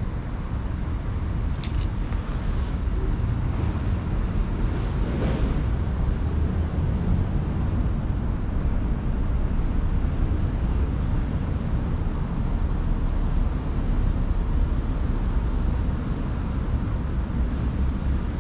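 Steady low rumble of outdoor background noise, with a brief faint click about two seconds in.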